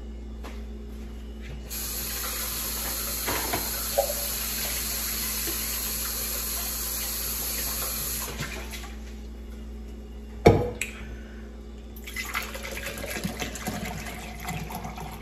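Water running steadily into a cup or glass for about six seconds, then stopping. A single sharp knock comes a couple of seconds later, and water runs again, more quietly, near the end.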